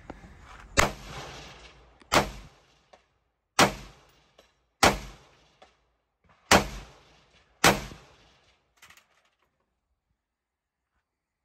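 Six single shots from an AR-style rifle, fired at a deliberate pace about one to one and a half seconds apart, each with a short echo dying away.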